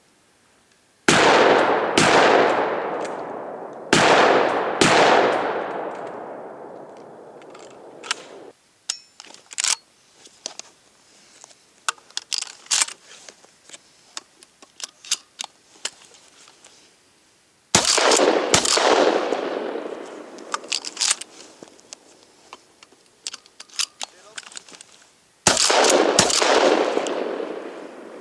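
Fabarm Martial pump-action 12-gauge shotgun firing: loud shots, mostly in quick pairs, each ringing out with a long echo. Between strings come rapid small clacks of shells being loaded into the gun and the pump being worked.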